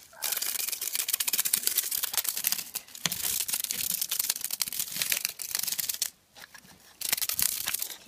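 A cicada caught in an insect net gives a harsh, rapidly pulsing buzz. The buzz cuts off sharply about six seconds in and starts again about a second later.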